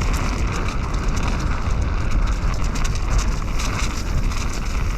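Mountain bike descending a dirt trail at speed: a steady rush of wind on the microphone over the rumble of the tyres, with small rattling clicks from the bike throughout.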